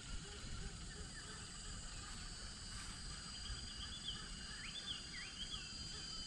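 Quiet outdoor ambience: a steady high insect drone, with a bird giving a few short warbling notes about halfway through, over a low rumble.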